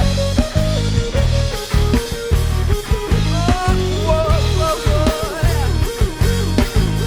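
Rock band playing an instrumental passage: drum kit and bass keep a steady beat under a lead melody line that bends and climbs higher about halfway through.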